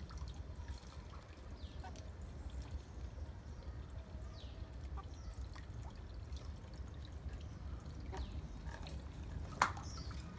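Chickens foraging in leaf litter: faint scattered rustles and short high chirps over a low rumble on the microphone, with one sharp click just before the end.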